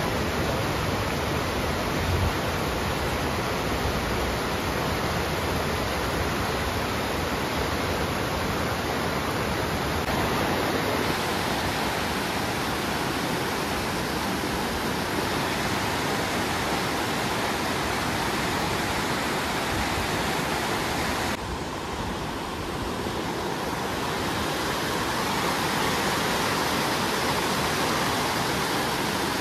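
A steady rushing noise with no breaks, its upper range dropping away briefly about 21 seconds in and coming back a couple of seconds later.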